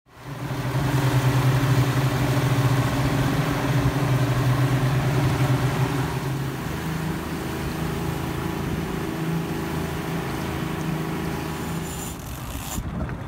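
Twin 200-horsepower outboard motors running steadily, an even low drone over a broad hiss of wind and rushing water from the wake.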